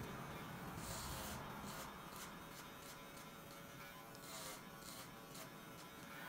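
Electric hair clippers buzzing steadily as they cut hair over a comb, with short hissy bursts about a second in and again just past four seconds.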